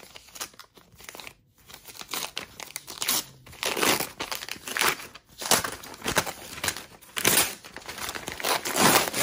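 White paper wrapping being torn and crumpled by hand off a roll of paper shooting targets: irregular rustling rips, softer at first and louder and busier after about three seconds.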